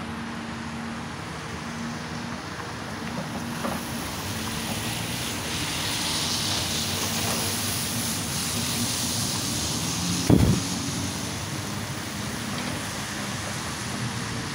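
Excavator's diesel engine running steadily, working harder for a few seconds in the middle, with one heavy thump about ten seconds in.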